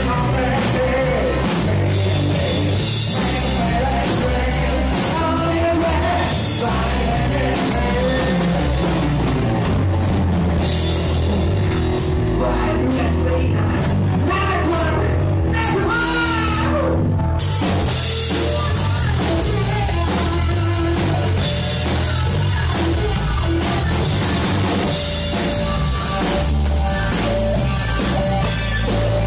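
Live rock band playing, with drum kit and singing. The cymbals drop out for several seconds midway while the rest of the band carries on, then the full kit comes back in.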